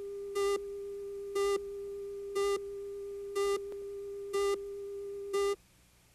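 Countdown leader at the head of a broadcast videotape: a steady test tone with a louder, buzzier beep once a second, six beeps in all. The tone and beeps cut off suddenly about five and a half seconds in, leaving faint tape hiss.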